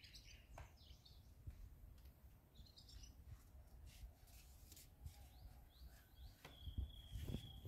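Faint outdoor ambience: scattered short, high bird chirps over a low rumble, with a thin steady high note starting about six and a half seconds in.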